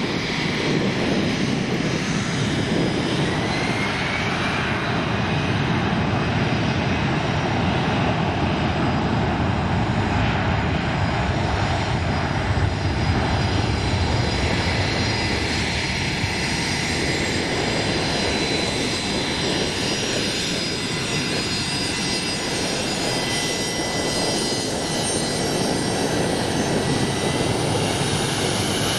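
Business jet's rear-mounted turbofan engines running at taxi power: a steady rush with high turbine whines, one of which rises in pitch a few seconds in.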